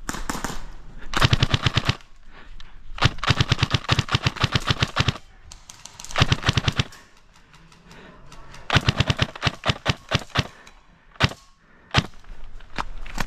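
Airsoft gun, most likely the player's own SSR90 electric rifle, firing four bursts of rapid automatic fire, the second burst the longest at about two seconds, then two single shots near the end.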